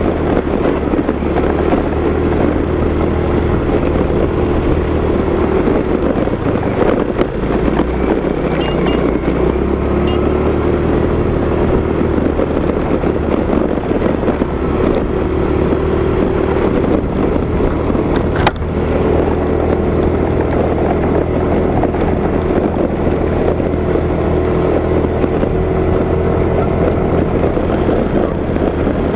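Motorcycle engine running steadily under way on a rough road, with wind buffeting the bike-mounted camera's microphone.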